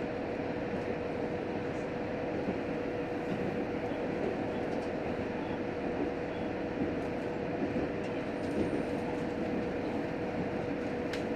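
Cabin running noise inside a JR Hokkaido H100 diesel-electric railcar: the steady rumble of the train on the rails with a constant hum held throughout. There is a single click near the end.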